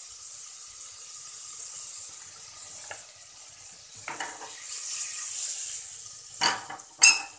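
Butter and oil sizzling as they heat in a pressure cooker, a steady hiss that grows louder around the middle as the fat starts to bubble. A few short clinks, the loudest near the end.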